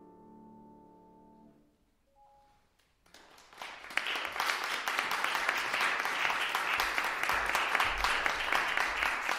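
Trombone and piano sustain a final chord that fades out about a second and a half in. After a short hush, audience applause begins about three seconds in and quickly swells to steady clapping.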